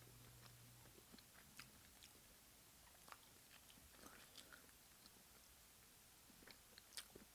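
Faint chewing of raw fish and sushi: soft, scattered wet mouth clicks close to the microphone.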